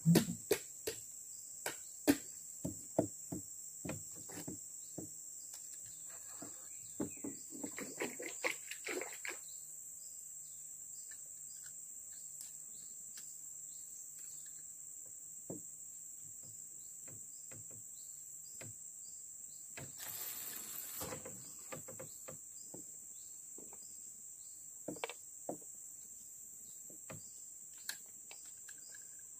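Steady, high-pitched insect chorus. Scattered short clicks and knocks sound through the first ten seconds, and a brief rustle comes about twenty seconds in.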